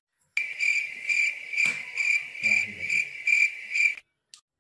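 Cricket-chirping sound effect: regular high chirps, about two a second. They start suddenly just after the cut and stop dead about four seconds in.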